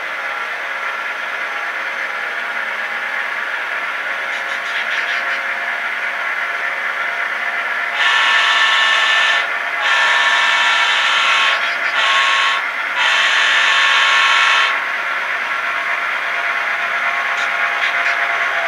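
Sound-equipped model diesel locomotive pulling an empty coal train: its recorded diesel engine drones steadily under load, and about eight seconds in its horn sounds four blasts, long, long, short, long, the grade-crossing signal.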